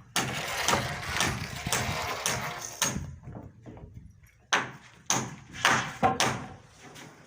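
Hammer blows driving nails into timber roof rafters: sharp, ringing strikes about two a second, beginning again about four and a half seconds in after a busier, noisier stretch of knocking.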